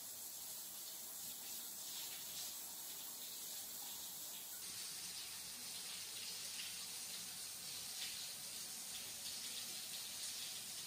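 Water pouring from a mixer tap's spout into a jacuzzi tub as it fills: a steady rush of running water.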